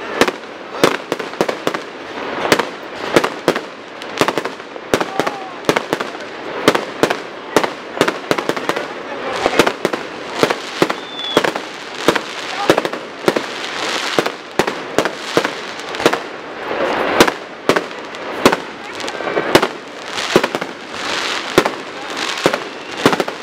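Aerial fireworks going off in a rapid, irregular barrage of sharp bangs, several a second, over a constant hiss and crackle of bursting shells.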